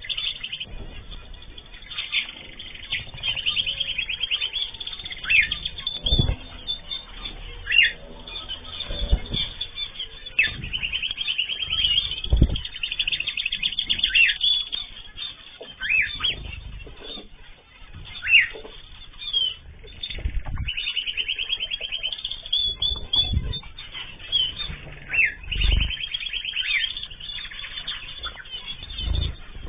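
A mixed group of cage birds (cockatiels, zebra finches and canaries) chirping, trilling and calling continuously, with short sweeping calls, and a few dull thumps scattered throughout.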